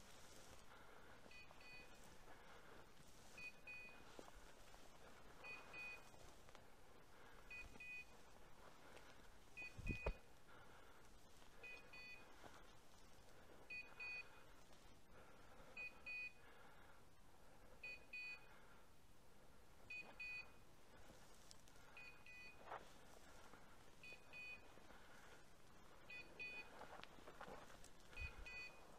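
Electronic beeper collar on a hunting setter, sounding a short string of beeps about every two seconds, faint over footsteps rustling through dry bracken. A single knock about ten seconds in is the loudest sound.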